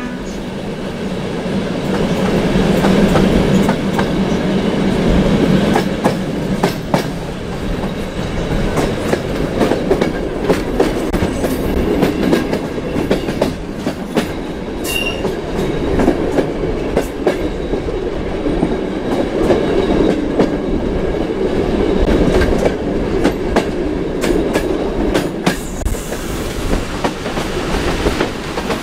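Train running along the track behind an SP42 diesel locomotive: a steady rumble, with irregular clicks and knocks as the wheels pass over rail joints.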